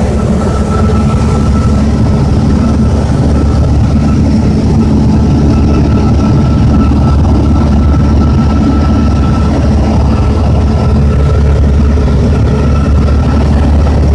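Piper PA-22 Pacer's 180 hp engine and propeller droning steadily in flight, heard from inside the cabin: a loud, even drone with a constant low hum and a faint high whine.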